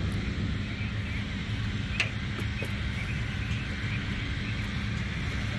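A machine engine running steadily, a low rumble with a constant hum, with one sharp click about two seconds in.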